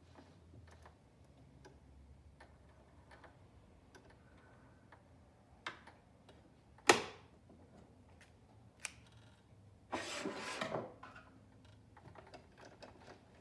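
Small clicks and taps of plastic and metal parts being fitted back onto a Janome 2212 mechanical sewing machine as it is reassembled after cleaning. One sharp click about seven seconds in is the loudest sound, and about ten seconds in comes a scrape lasting about a second.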